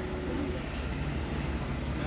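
Steady low rumble of a motor vehicle running, with a constant hiss of road or traffic noise.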